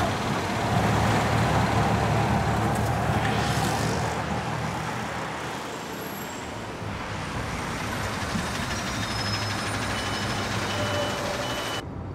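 Auto-rickshaw engine running and pulling away amid street traffic, loudest at first and fading over several seconds. Near the end the sound cuts suddenly to a quieter, steady hum inside a bus.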